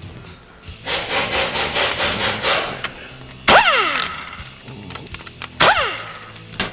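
Ratchet wrench worked in quick back-and-forth strokes, about six a second for two seconds, on the small bolts of a transmission valve body. It is followed by two sharp knocks, each with a ring that falls in pitch.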